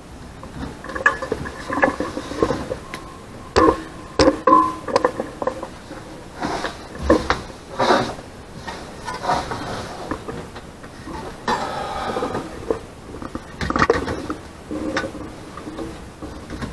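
Irregular knocks and clatter as a wooden board and a handsaw are handled and set against a metal step stool, with a few short ringing tones among the knocks.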